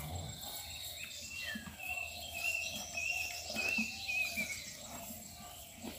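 High-pitched, wavering chirping calls, strongest in the middle few seconds, with a few faint low knocks.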